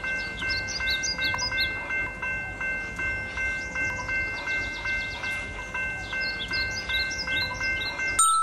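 Railway level-crossing warning bell ringing rapidly, about four dings a second, and cutting off near the end, with high chirps over it.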